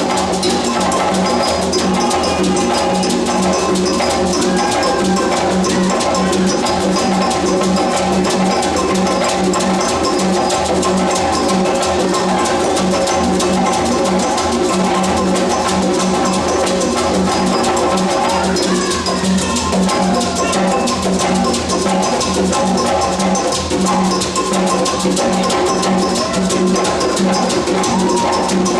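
West African drum ensemble playing percussion music: drums and struck percussion keep up a dense, steady rhythm throughout.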